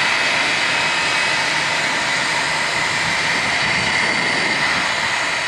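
Twin Pratt & Whitney PT6A turboprop engines of a Beechcraft MC-12W (King Air 350ER) at takeoff power as the aircraft climbs away: a steady high whine over the propellers' roar.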